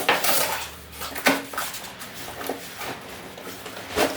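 Cardboard box and packaging being handled and opened, with rustling and scattered knocks and scrapes.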